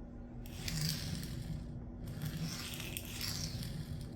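Sharpening stone drawn along a knife edge in two long strokes with short gaps between them, a rasping scrape. The old edge is being ground away to set a new one at about 22 degrees per side.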